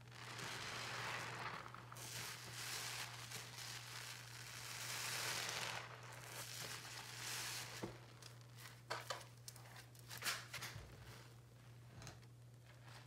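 A soap-loaded sponge squeezed and pressed in a basin of sudsy water. For the first several seconds there are long hissing, fizzing squelches, then scattered crackles and pops of foam. A steady low hum sits underneath.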